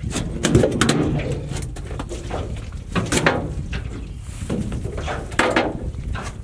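Irregular knocks and clatter against an aluminium boat as a fishing rod and line are handled, over a steady low rumble.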